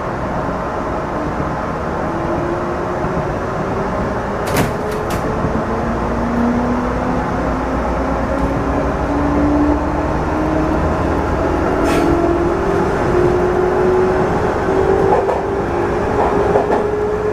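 JR 213 series electric train accelerating away from a station, heard from the driver's cab: a steady running rumble with a motor whine that rises slowly in pitch as it gathers speed. Sharp clicks of the wheels over rail joints and points come now and then, several together near the end.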